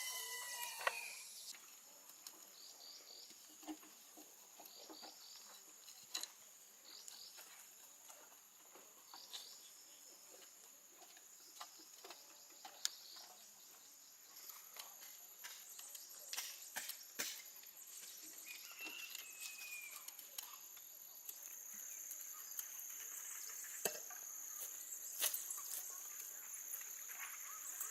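Faint steady high-pitched insect drone, like crickets or cicadas, with scattered light clicks and knocks and one short bird chirp about two-thirds of the way through.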